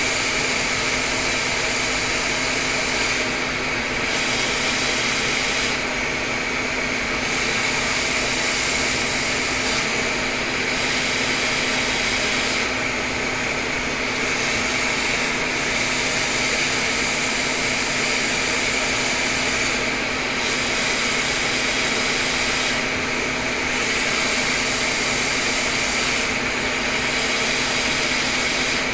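Quick 861DW hot-air rework station blowing a steady hiss of air with a faint hum under it, reflowing a small chip onto a logic board. The upper part of the hiss dips briefly every few seconds.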